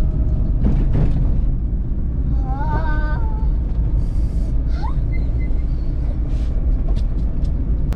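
A vehicle on the move down a hill road, giving a steady low rumble of engine and road noise.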